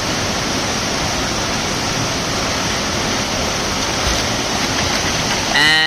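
Waterfall pouring into its pool: a steady, loud rush of falling water. A held tone at a steady pitch starts just before the end.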